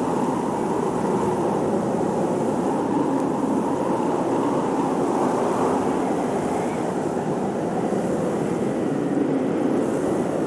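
Blizzard wind blowing steadily, a dense rushing noise that swells and eases slowly.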